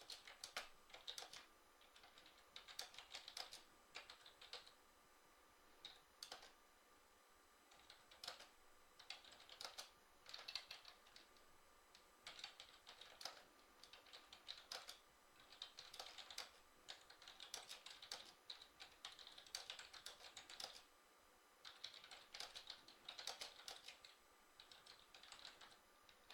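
Faint typing on a computer keyboard: quick runs of key clicks in short bursts with brief pauses between them.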